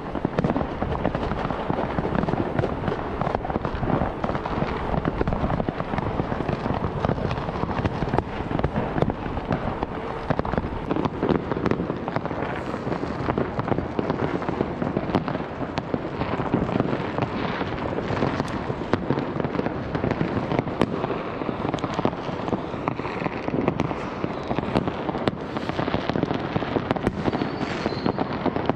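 Fireworks and firecrackers going off in many places at once: a dense, unbroken crackle of overlapping bangs and pops.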